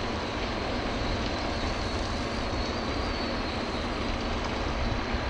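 Tracked hydraulic excavator working at a quarry face: a steady machine noise that runs without a break.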